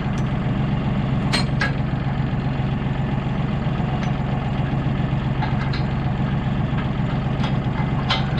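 John Deere tractor engine idling steadily, with a few sharp metal clinks as the three-point hitch lower arm is worked onto the blade's pin: two about a second and a half in and one near the end.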